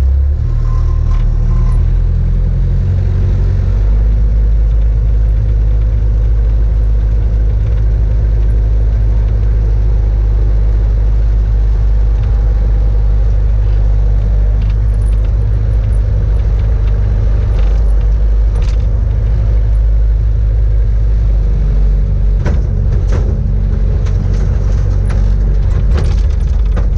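Bobcat S100 skid-steer loader's diesel engine running steadily, heard from inside its cab, with a few sharp knocks and rattles near the end.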